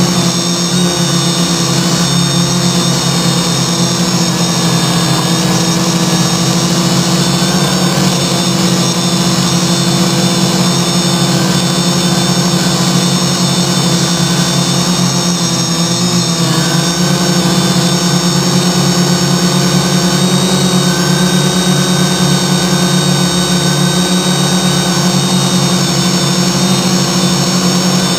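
The six brushless motors and propellers of a CarbonCore Y6 multirotor running steadily in flight, heard up close from the airframe itself: a loud, even buzzing hum with layered overtones. Its pitch shifts a little about two-thirds of the way through, as the copter climbs.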